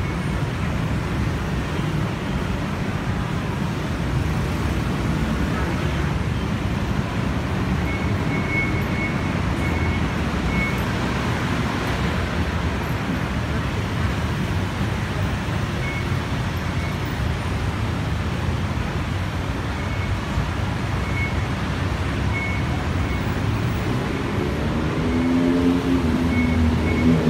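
Steady road-traffic noise from a congested city street, a continuous low rumble of cars and motorbikes. Faint short high chirps come and go now and then.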